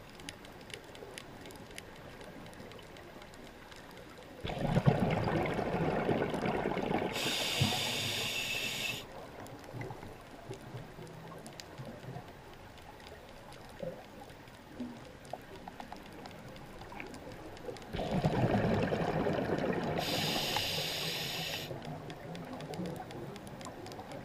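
A scuba diver breathing through a regulator underwater: twice, about 14 seconds apart, a breath with a burst of bubbles burbling and a high hiss for about two seconds. Between breaths a faint crackling underwater background.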